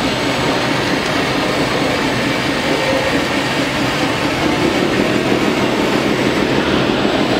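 Hydraulic RC model excavator working, its pump running steadily as it swings and dumps a bucket of soil into a model tipper truck.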